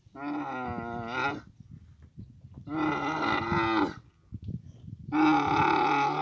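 Dromedary camels mating, with three loud drawn-out bellowing calls a second or so apart and low grunting and rumbling between them.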